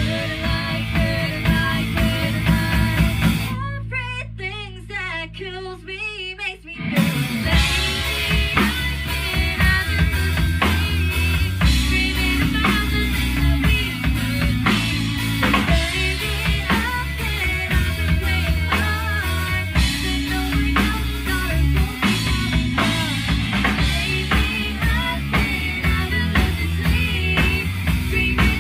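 Youth rock band playing live: a female lead singer over electric guitar, bass guitar and a Tama drum kit. A few seconds in, the drums and guitar drop out for about three seconds, leaving the voice over held low notes, then the full band comes back in.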